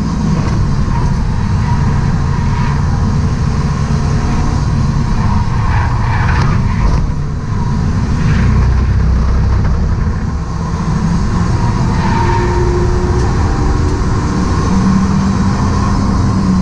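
Stock BMW E36 Compact engine working hard on a race track, heard from inside the cabin with road and wind noise. It eases off as the car brakes for a corner about halfway through, then pulls hard again as the car accelerates out.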